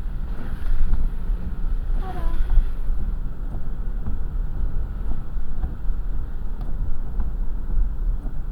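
Car driving along, a steady low rumble of road and engine noise heard from inside the cabin.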